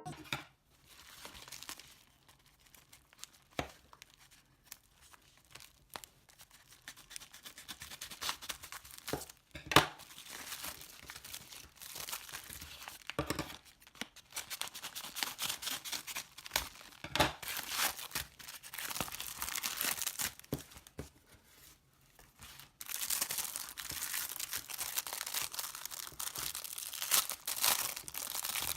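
Packaging being torn open and crinkled by hand: irregular crackling and tearing with sharp clicks, sparse and paused at first, then denser and louder near the end.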